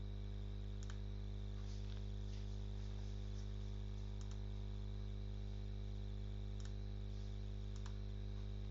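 Steady electrical hum in the recording, with a few faint computer mouse clicks scattered through it.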